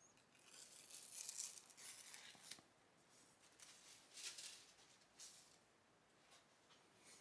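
Faint rustling and crinkling of the thin protective sheet being peeled off a new MacBook Pro's display. It comes in a few bursts over the first five seconds, the longest and loudest in the first two and a half.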